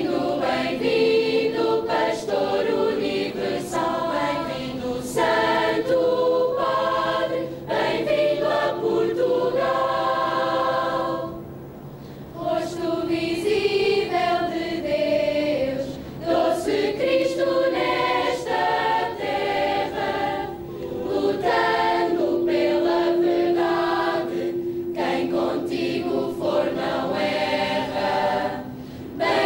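A choir singing, in phrases of long held notes with short breaks between them.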